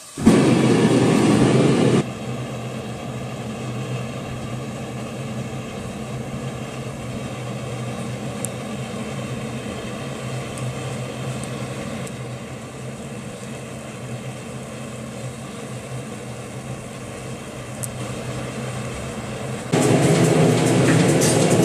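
Steady hum of electric shop machinery running, a low pitched drone with many overtones. It is louder for the first two seconds and again near the end, with a couple of sharp knocks just before the end.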